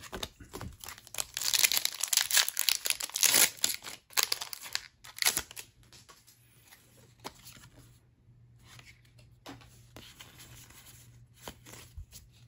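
Foil wrapper of a Pokémon card booster pack being torn open and crinkled for about four seconds, followed by softer rustling and light clicks of the cards being handled.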